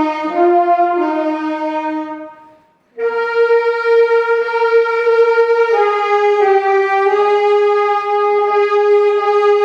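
Sustained instrumental music, steady held notes changing in steps; it fades out about two seconds in, breaks off briefly and comes back in about three seconds in.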